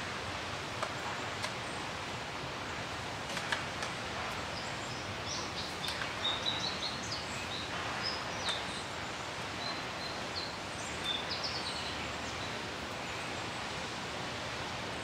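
Steady outdoor background hiss with scattered light clicks and knocks of white PVC pipe pieces and fittings being handled and pushed together. Small birds chirp several times through the middle.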